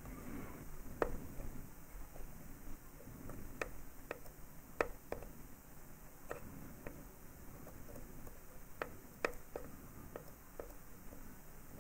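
About a dozen faint, irregular small clicks and taps from fiddling with the cotton wicking on a Geek Vape Griffin rebuildable tank's coil deck.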